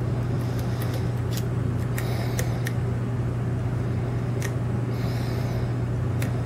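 A steady low hum, with a handful of small, sharp clicks from a lock pick working against the pins inside a brass lock cylinder.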